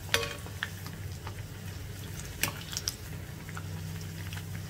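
Batter-dipped bread fritters sizzling as they deep-fry in hot oil in a cast-iron kadai, with a slotted metal spatula clicking and scraping against the pan a few times as the fritters are turned, over a steady low hum.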